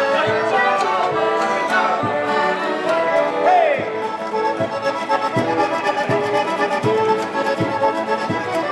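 Accordion music with a steady beat.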